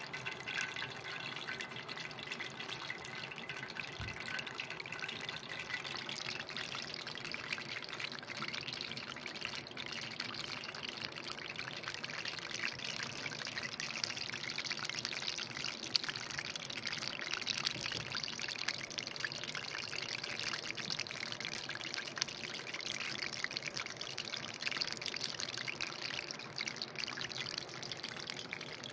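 Kadayıf rolls frying in hot oil in a pan over a wood fire, sizzling steadily with a dense fine crackle.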